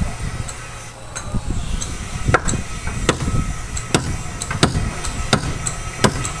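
Hammer blows on timber, six sharp strikes in an even rhythm, about one every three-quarters of a second, starting a couple of seconds in, over a low steady rumble.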